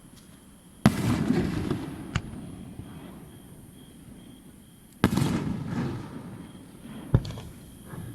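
Aerial firework shells bursting at a fireworks display: two loud bangs, about a second in and about five seconds in, each followed by a rumbling, crackling tail of about a second. Two lighter, sharper cracks come about two seconds in and about seven seconds in.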